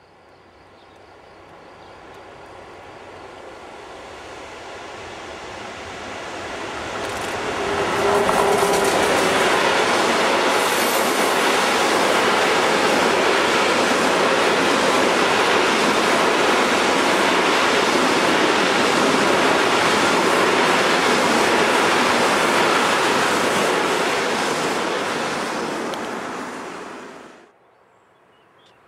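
Freight train of hopper wagons approaching and passing close by: the sound of the train grows for about eight seconds, then the loud steady noise of the wagons rolling past on the rails continues before cutting off suddenly near the end.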